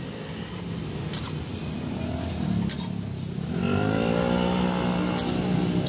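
A motor vehicle engine passing close by, rising in pitch as it speeds up about halfway through and then holding, over steady street traffic noise. A few sharp metallic clicks, the spatula striking the wok.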